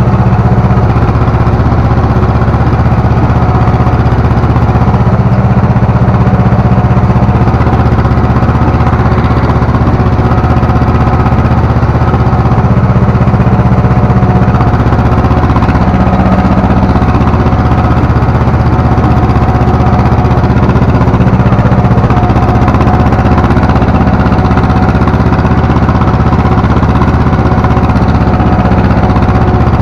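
Ursus C-330 tractor's two-cylinder diesel engine running steadily under load as it pulls a three-furrow plough, heard from inside the cab.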